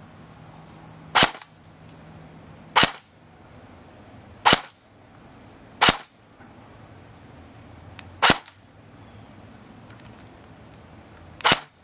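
D-Boy SCAR-L airsoft electric gun (AEG) firing single shots, six in all, each a short sharp crack, spaced one to three seconds apart.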